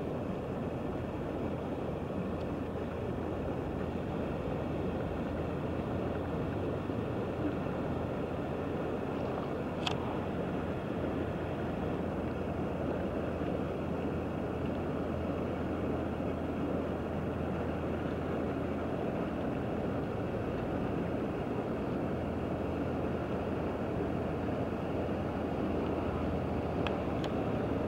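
Steady low drone of a passing inland motor cargo barge's diesel engine carried across the river, with a faint wash of wind and water. A single small tick about ten seconds in.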